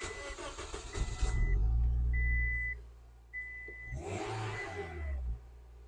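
A 2004 Scion xB's 1.5-litre four-cylinder engine is cranked by the starter and catches after about a second. It runs strongly, settles, is revved again near the end and then drops to a quiet idle: it is starting and running on the newly installed in-tank fuel pump, the fuel line having been purged of air. A dashboard warning chime beeps steadily about once a second throughout.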